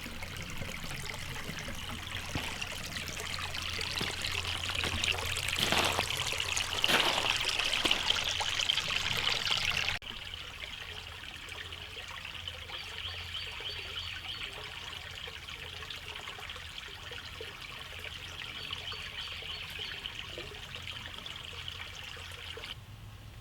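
Koi pond water trickling and splashing steadily. It drops suddenly to a quieter level about ten seconds in.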